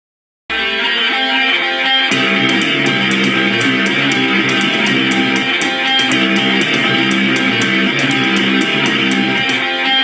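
Guitar-led band music that starts after a brief silence. About two seconds in, a fuller low end and a steady ticking beat join.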